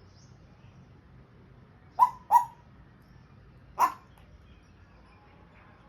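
African grey parrot giving three short, loud, sharp calls: two in quick succession, then a third about a second and a half later.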